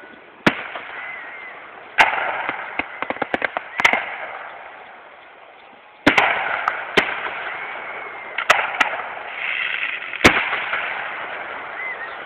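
Aerial fireworks shells bursting overhead: a string of sharp bangs one to two seconds apart, with a quick run of crackling pops about three seconds in.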